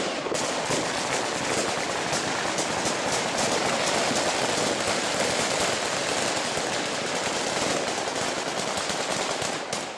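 Heavy automatic gunfire: shots in rapid, dense succession without a break, dying away near the end.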